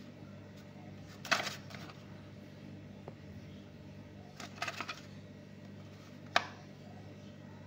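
A toy car's cardboard-and-plastic blister pack being handled: the card and blister crackle and click as it is turned over, then a sharp tap about six seconds in as it is set down on a table. A steady low hum runs underneath.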